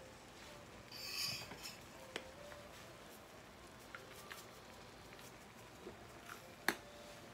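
Faint, light clicks and taps of a metal spoon and a small stainless saucepan being handled on a gas stove, with a brief hiss about a second in; the sharpest click comes near the end.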